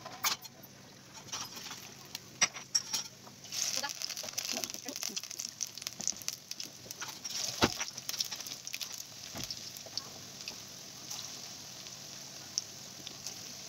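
Zucchini kofta deep-frying in hot oil in a wok: a steady sizzle full of sharp crackles and pops, getting busier from about three seconds in as more pieces go into the oil.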